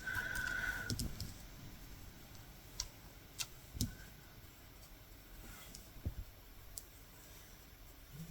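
Faint scattered clicks of a latch hook tool working yarn through rug canvas, a handful of separate clicks a second or more apart. A short high steady tone sounds in the first second.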